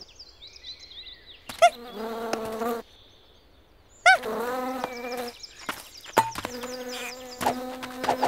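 Cartoon bee buzzing with a high, warbling buzz, cut across by a cartoon monkey's held, wailing cries, three of them, about a second each, as it is stung on the lip.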